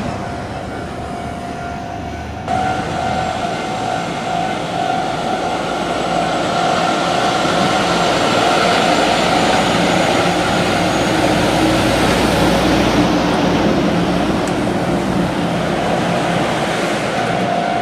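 Level-crossing alarm ringing in a steady two-tone pattern that becomes louder about two and a half seconds in, while a heavy double-trailer haul truck's engine and tyres pass through the crossing, loudest around the middle.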